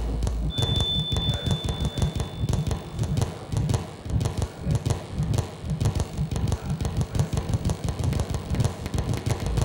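Electronic glitch soundtrack of an audio-visual installation: dense, irregular clicks and low thudding pulses. A deep steady hum cuts out about half a second in, and a thin high steady tone sounds for a couple of seconds.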